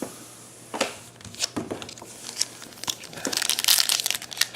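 A few light clicks of trading cards being handled, then a plastic foil card-pack wrapper being torn open and crinkled, growing loud over the last second or so.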